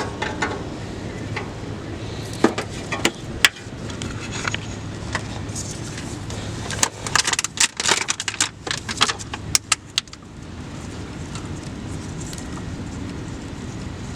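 Metallic clinking and jangling, a few sharp clinks about two and a half seconds in and a busier run of rattling clinks from about seven to ten seconds, over a steady low hum.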